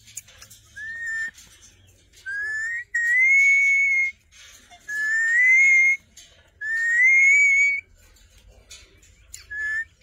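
Parakeet whistling: six smooth whistled notes near the same pitch, each rising slightly. The middle four are about a second long and loudest, and the first and last are short.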